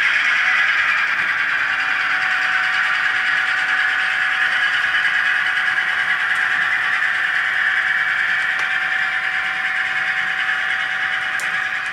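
Model railroad freight cars rolling along the track, a steady rolling hiss of wheels on rail, with a faint steady whine joining about two seconds in.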